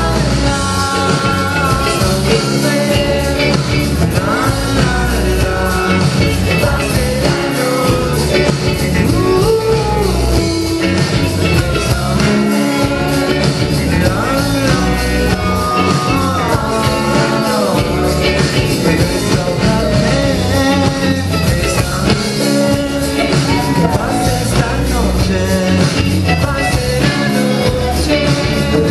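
Rock band playing live: a singer's voice over drums, guitar and keyboard at a steady beat.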